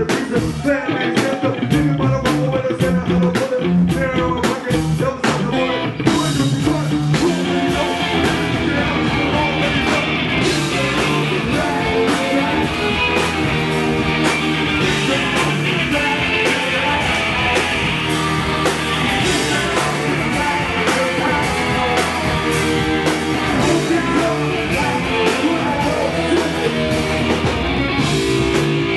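Live funk band playing: drum kit, electric guitar and keyboards, with a woman singing. About six seconds in, the band's sound fills out and grows denser.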